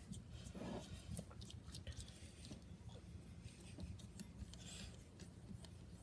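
Faint ticking and scraping of glue being stirred with green colouring in a container while slime is made, over a low steady hum.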